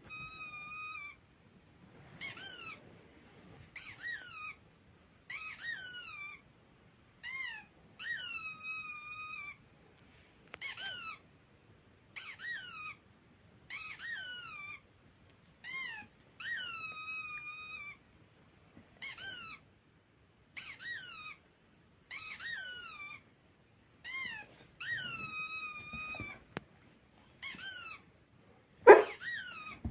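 A series of high squeaks, one every second or two, each dipping and rising in pitch before settling on a held note. A loud thump comes near the end.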